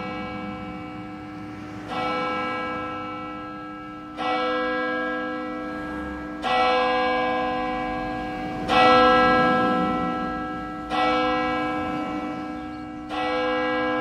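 A single church bell tolling: six strikes about two seconds apart, each on the same note and ringing on, fading slowly until the next stroke.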